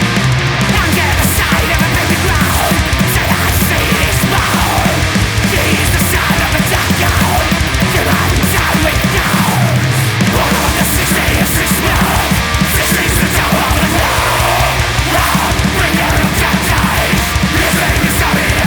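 Fast black-thrash metal: distorted electric guitars over dense, rapid drumming, with repeated falling high notes.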